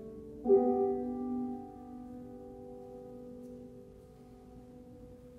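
Piano music ending: a last chord is struck about half a second in, rings out and slowly fades, with no further notes after it.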